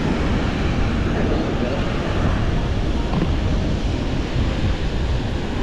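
Wind buffeting the microphone over a steady wash of ocean surf.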